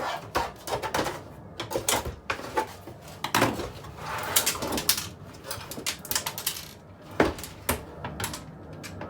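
Irregular knocks, clicks and scraping from a flat-screen TV's metal and plastic casing as it is handled and pried apart.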